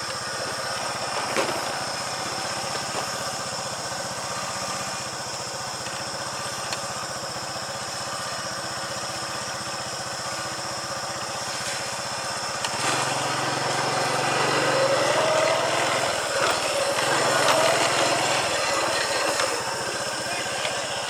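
A vehicle engine running steadily, growing louder about two-thirds of the way through.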